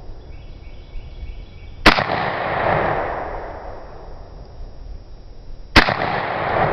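Two shots from a Savage 745, a long-recoil semi-automatic 12-gauge shotgun cut down to about 19 inches, fired about four seconds apart. Each shot trails off in a long echo.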